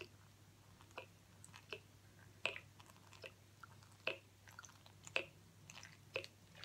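Water squeezed in drips from an upturned plastic water bottle into a plastic mixing bowl: faint, irregular small drips and clicks, one every half second to a second.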